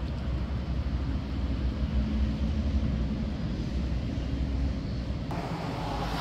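Steady low rumble of nearby city road traffic, which switches abruptly to a brighter hiss about five seconds in.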